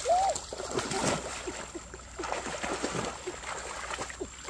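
Water splashing and slapping irregularly as hands and knees thrash through shallow, weedy water, grabbing at fish.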